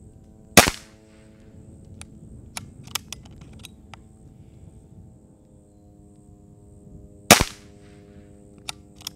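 Two shots from a Brocock Grand Prix S6 .22 PCP air pistol, sharp cracks about seven seconds apart. Between them come a few light clicks as the repeating action is cycled to chamber the next pellet.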